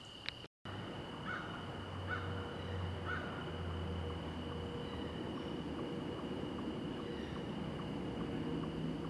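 Steady outdoor ambience on a wooded hiking trail, a low rumbling noise with a thin steady high tone and faint light ticks.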